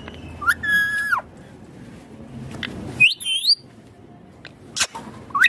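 Indian ringneck parakeet calling: a drawn-out call about half a second in that rises, holds its pitch and drops away, then a shorter harsh squawk about three seconds in. A sharp click sounds near the end.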